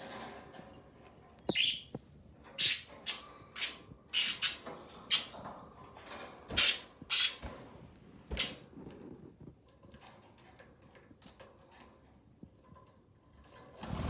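Frightened budgies in their cage: a short chirp near the start, then a quick run of a dozen or so sharp, harsh bursts of flapping and squawking over about six seconds, dying away to faint rustling.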